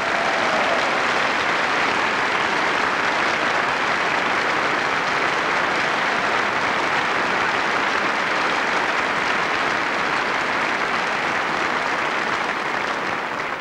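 A large hall audience applauding steadily, fading out near the end.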